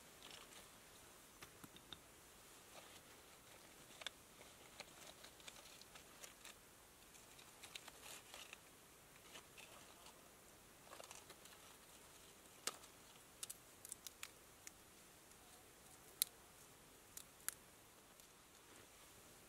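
Hands handling gear in a small pouch: quiet rustling with scattered short, sharp clicks, the sharpest coming in a cluster past the middle and a few near the end.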